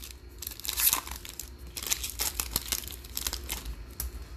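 Foil wrapper of a 2021 Prizm Draft football card pack being torn open and crinkled by hand: a run of quick crackles with a louder tear about a second in.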